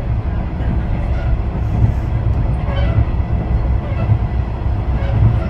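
Running noise heard inside a moving KiHa 110 series diesel railcar: a steady low rumble from the train under way.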